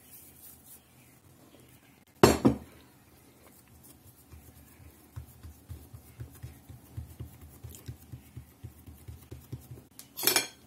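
Fingers patting and pressing a ball of dough flat on a wooden cutting board, a run of soft thumps two or three a second from about five seconds in. A single sharp knock comes about two seconds in and is the loudest sound, and a brief clink of dishes comes near the end.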